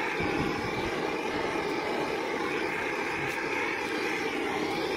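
Handheld gas blowtorch burning steadily, its flame heat-shrinking sleeves on a medium-voltage XLPE cable joint.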